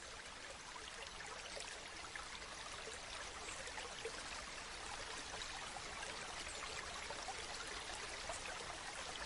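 Steady, fairly quiet water noise, like running or trickling water, with many small crackles and ticks through it.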